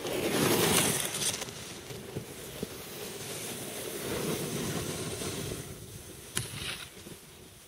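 Snowboards sliding and scraping over snow. The loudest part is a spray of snow in the first second or so, followed by a steadier scraping hiss that fades later, with a couple of sharp clicks near the end.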